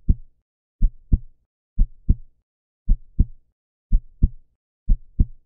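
Heartbeat sound effect: pairs of short, low thumps (lub-dub), repeating evenly about once a second.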